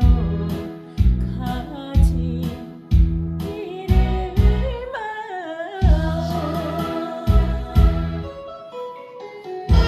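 Korean trot song: a solo voice sings a slow, wavering melody with vibrato over a backing band with a steady drum beat.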